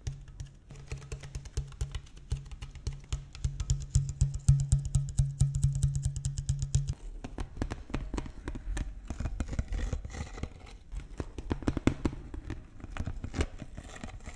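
A clear plastic water bottle is crinkled, squeezed and tapped by hand close to the microphones, making dense, irregular crackles and clicks. A low steady hum runs under it for about the first half and then stops.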